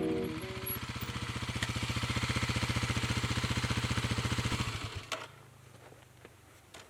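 An engine running with a steady, rapid, even pulse, which stops about five seconds in.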